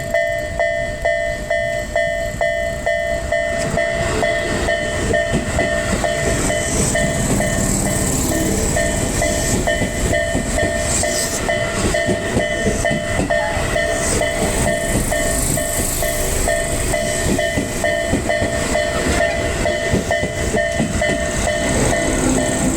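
Railway level-crossing warning bell ringing in a steady repeating rhythm while a Tobu Tojo Line train passes over the crossing. The wheels rumble and clatter on the rails from about four seconds in.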